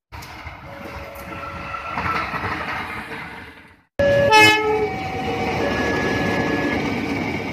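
Diesel locomotive trains passing. First comes the steady running noise of a locomotive approaching at a distance. After a sudden cut about four seconds in, a KAI CC 201 diesel-electric locomotive passes close and much louder, its horn sounding over the engine and wheel noise.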